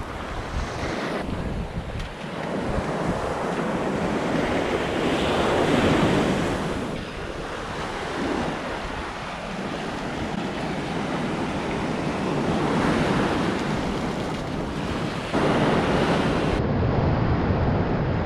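Ocean surf washing up a sandy beach in swells, with wind rumbling on the microphone; it grows louder about a third of the way in and steps up again near the end.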